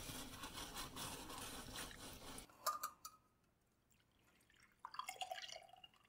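Spiced water being poured from a small steel saucepan through a fine mesh sieve into a glass measuring jug, trickling and dripping faintly in short spells, with a couple of small clicks.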